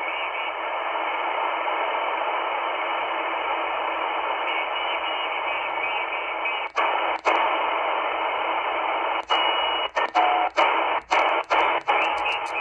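XHDATA D-808 shortwave receiver in upper-sideband mode giving out a steady rush of 20-metre band static, squeezed into a narrow voice-width band, with no station in tune. From about halfway through, the hiss is broken by a string of brief mutes as the tuning knob steps the frequency up the band, and a couple of short whistles pass by.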